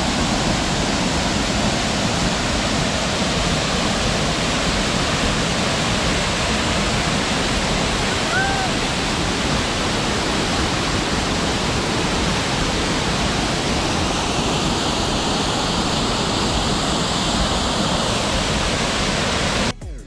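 Waterfall pouring steadily, a loud, even rush of falling water, with a single short chirp about eight seconds in; the sound cuts off abruptly near the end.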